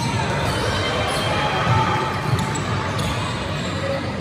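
A basketball bouncing on the court amid the steady mixed noise of a game in progress.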